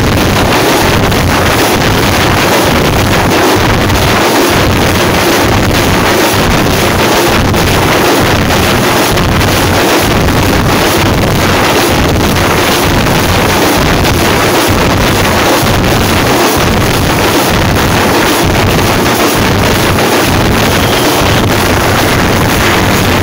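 A troupe of hand-held frame drums beaten hard and fast with sticks, in a continuous dense rhythm. It is loud enough to overload the microphone into a constant distorted wash.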